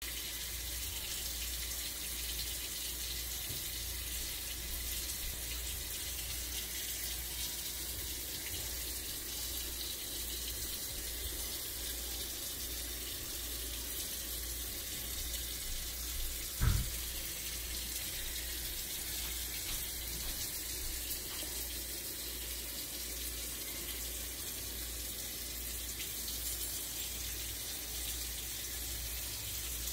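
A steady hiss with a low hum underneath, and a single thump a little past halfway.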